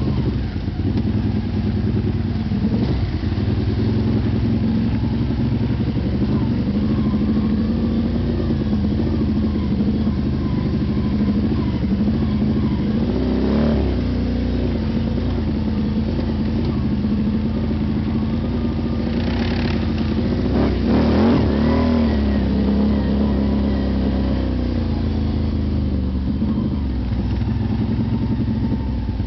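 Can-Am Renegade 800 ATV's V-twin engine running under way on a muddy trail, heard from the rider's helmet. It revs up and down briefly about halfway through and again about two-thirds of the way in.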